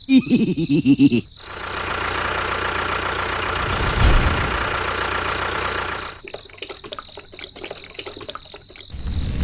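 A small motor runs steadily with a hum and a fixed whine for a few seconds after a short burst of rapid pulsing at the start. Near the end it gives way to a run of rattling clicks.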